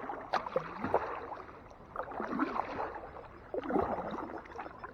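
Kayak paddle strokes: water splashing and dripping off the paddle blades, swelling twice, about two and about four seconds in.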